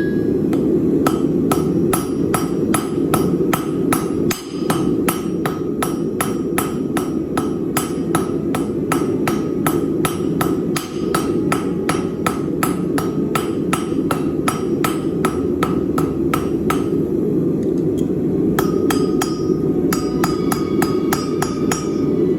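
Hammer blows on a Chinese-style turtle anvil, a cast iron body with a tool steel top, struck at a steady pace of about three a second, each with a short ring. The blows pause for about two seconds near the end, then resume. A steady low noise runs underneath.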